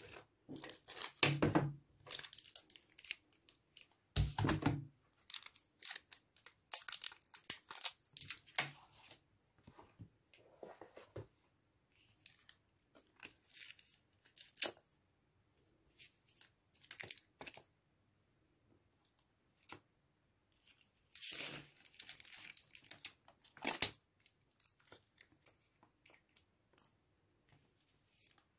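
Clear adhesive tape peeling off paper in short rips, with the crinkle of the tape-backed metal bezel frames being handled and pressed down. Two dull knocks come about one and a half and four seconds in.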